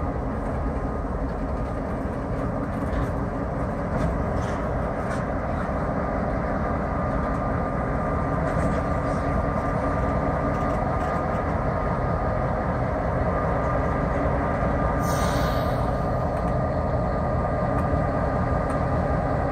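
EMD GP38-2 diesel-electric locomotive's 16-cylinder 645 engine idling steadily while the locomotive is turned on a turntable. A short hiss comes about fifteen seconds in.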